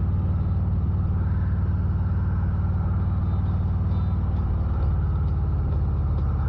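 Motorcycle engine running while riding, a steady low engine note whose pitch shifts about five seconds in.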